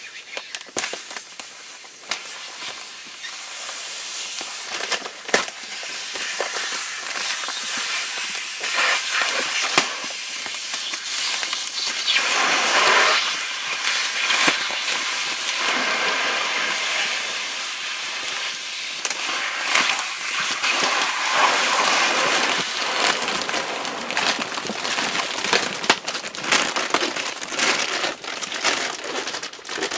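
Rustling and crinkling as a pad and mattress are pulled about and settled on a bunk bed, with scattered sharp crackles and light knocks. It grows louder in the middle and again later on.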